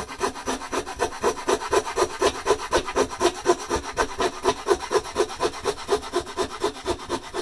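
Small hand saw cutting through a wooden backing batten with rapid, even back-and-forth strokes.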